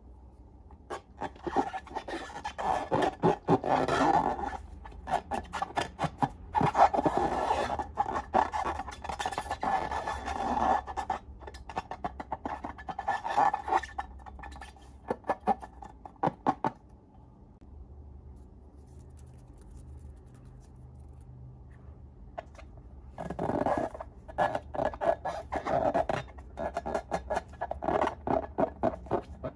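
Slime being pressed and stretched by hand, giving rapid sticky clicks and crackles in bursts, with a quieter pause of several seconds in the middle.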